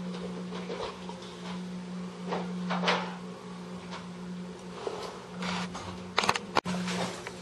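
Scattered metallic clicks and knocks from an electrician handling metal electrical conduit and a wall-mounted box, with a quick cluster of sharp clatters about six seconds in. A steady low hum runs underneath.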